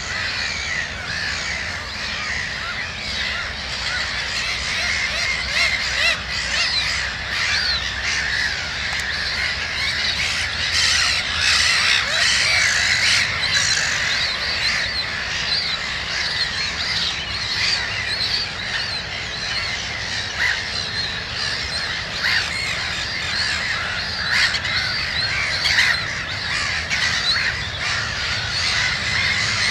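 Black-headed gull colony calling: many short calls overlapping without a break, busiest from about a third of the way in.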